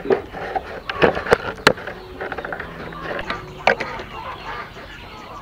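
Bamboo strips being hand-woven into a basket: dry rustling and crackling of the strips against the weave, with a few sharp clicks and knocks as strips are pushed and snapped into place.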